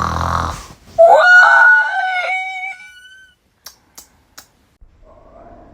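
A person voicing a cartoon character's yawn: a short, rough, low vocal sound, then a long high-pitched 'aah' that wavers and trails off over about two seconds. A few faint clicks follow.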